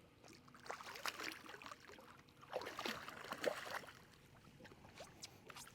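Water splashing with scattered knocks as a hooked blue catfish is brought up beside the boat, in two flurries around a second in and again a little after the middle.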